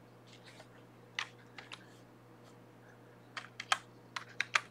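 Keystrokes on a computer keyboard: a few scattered presses, then a quick run of several near the end.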